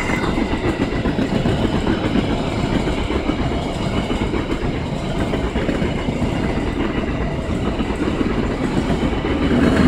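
KA Ranggajati passenger train's coaches rolling past close by: steady, loud noise of steel wheels running on the rails.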